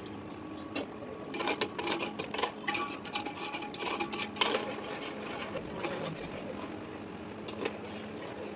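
Steel spoon stirring milk in an aluminium pot, scraping and clinking against the pot in a quick run of clicks for a few seconds, with one more clink near the end, over a steady hum.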